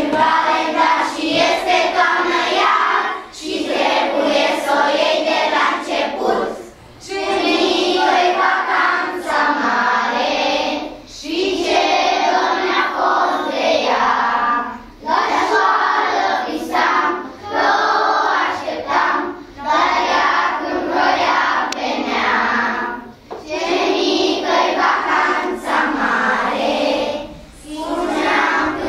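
A class of young children singing together in unison, in phrases of a few seconds each with short breaks between them.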